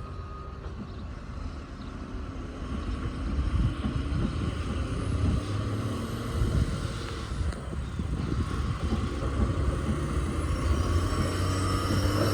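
Low, steady engine rumble of a heavy vehicle, growing gradually louder.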